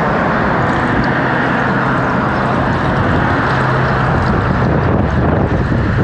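Octane booster additive pouring out of an upturned metal can through a plastic funnel into a car's fuel filler, over a steady low engine-like hum and rumble.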